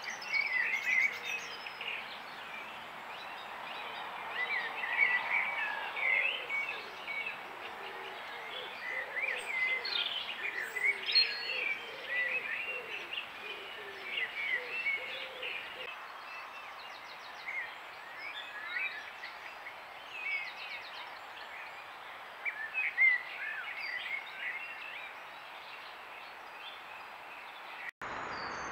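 Songbirds singing in woodland: many short, quick chirping phrases, one after another, over a steady background hiss.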